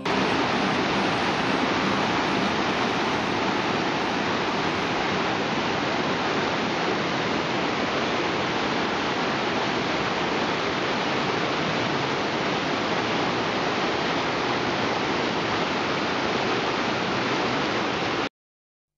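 Whitewater river rapids rushing steadily below a log crossing, an even, loud wash of water that cuts off suddenly near the end.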